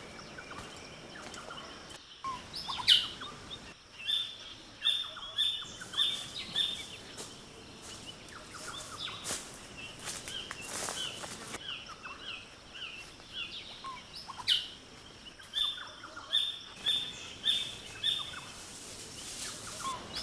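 Rainforest birds calling: runs of short, high repeated chirps and several louder, sharp downward-sliding calls, over a faint hiss of air in the foliage.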